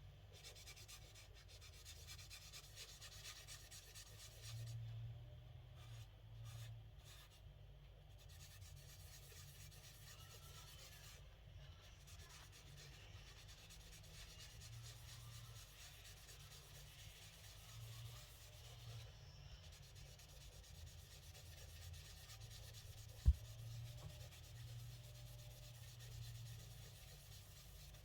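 Faint rubbing of a tissue loaded with aluminium polish over the painted surface of a car door handle, worked in circular motions to polish out orange peel in the paint. A low steady hum runs underneath, and one sharp click sounds about three-quarters of the way through.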